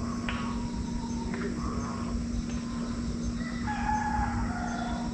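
A rooster crowing: one long call about two-thirds of the way in, over a few short bird calls earlier and a steady low hum.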